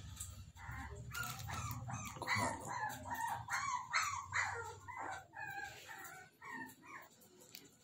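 Lhasa Apso puppy yelping and whining in a long string of short high cries, about three a second, loudest in the middle and fading toward the end.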